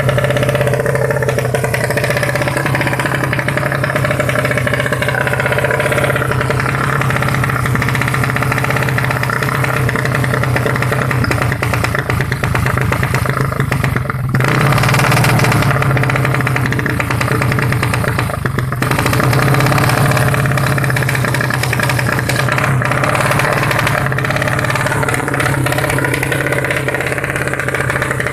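A tuned 135cc motorcycle racing engine idling steadily, with a rattly mechanical clatter over the exhaust note. The pitch barely changes, apart from a brief dip about halfway through.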